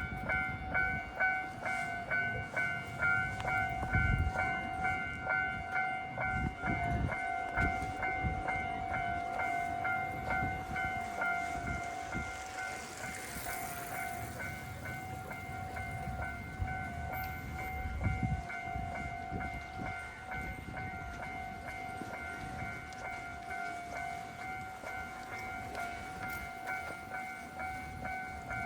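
Japanese level-crossing warning bell ringing in a steady electronic pulse while a Tokyo Sakura Tram (Toden Arakawa Line) streetcar rumbles through the crossing.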